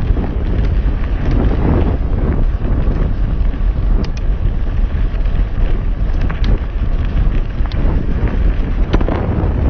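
Wind buffeting the microphone of a helmet-mounted GoPro on a mountain bike ride: a loud, steady rumble with a few sharp clicks scattered through it.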